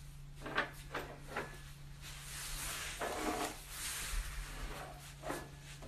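A cat's paw nudging a small drinking glass along a stone kitchen countertop: a few light knocks and scrapes of glass on the counter, some with a faint ring, over a steady low hum.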